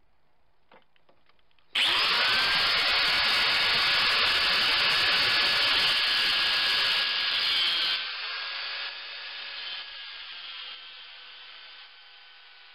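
Angle grinder starting about two seconds in and cutting into a mild steel blank with a loud harsh screech for about six seconds. Then it runs free off the metal with a steady whine that grows fainter in steps.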